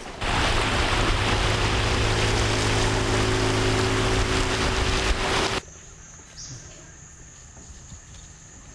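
Motorboat's outboard engine running steadily at speed, with rushing wind and water, until it cuts off abruptly about five and a half seconds in. Then quieter jungle ambience with a thin, steady, high-pitched insect drone.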